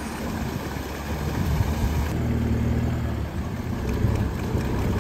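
Mahindra Thar's engine running at low revs as the SUV is eased forward through deep river water after sinking in. Its low note grows stronger about two seconds in, over a constant rush of noise.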